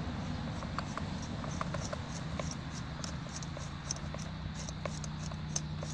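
Faint, irregular small clicks and scrapes of a flat-blade screwdriver turning a seized low-speed jet out of a carburetor float bowl, under down pressure.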